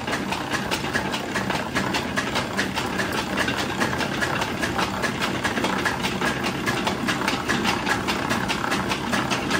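Mustard-seed oil expeller running steadily as it presses seed, with a fast, even rhythmic clatter.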